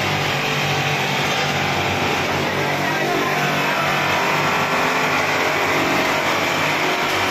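Electric buffing machine running steadily while a stainless steel plate is pressed against its spinning polishing wheel: a continuous loud grinding whir over a steady motor hum.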